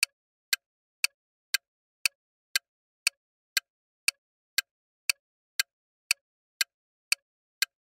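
Countdown timer sound effect: sharp clock-like ticks, about two a second, evenly spaced with silence between.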